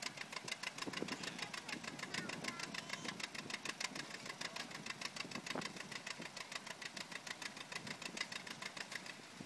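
John Deere 60's two-cylinder engine popping under load as it pulls the sled: a rapid, even beat of about seven exhaust pops a second that slows slightly and gets quieter near the end.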